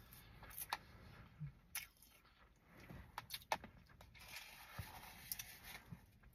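Soft crushed ice being chewed, and a spoon scraping and scooping ice in a plastic cup: scattered faint, short crunches and clicks.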